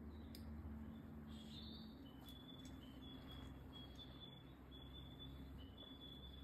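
Near-silent outdoor ambience: a low steady hum, with a string of faint, short high-pitched chirps, about two a second, starting about two seconds in.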